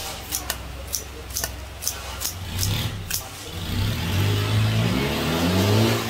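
Scissors snipping white stalks into a mortar in quick cuts about twice a second. About halfway through, a vehicle engine revs up and accelerates, rising in pitch and becoming louder than the snips.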